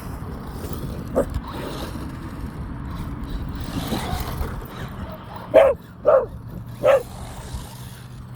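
Dog barking three short times in quick succession about two-thirds of the way through, over the steady hum of a toy remote-control car's motor.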